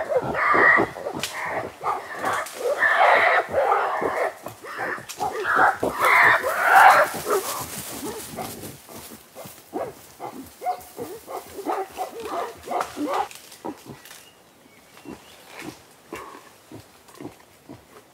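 Gorilla grunting: loud, rough calls for the first seven seconds or so, then a run of quieter, shorter grunts that thins out toward the end.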